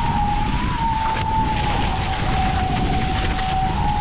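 Humming whine from a Nacra 15 FCS's hydrofoils as the catamaran foils at speed, a single steady tone that sinks a little in pitch over a few seconds; its pitch follows boat speed, rising as the boat goes faster. Wind buffeting the microphone and rushing water make a heavy noise under it.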